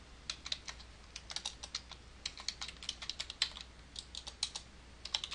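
Typing on a computer keyboard: quick runs of sharp keystrokes separated by short pauses.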